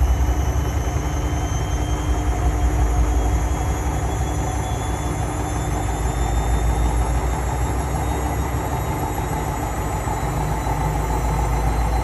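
Slim Indesit front-loading washing machine on its spin cycle: the drum spinning fast, giving a steady low rumble with a hum over it.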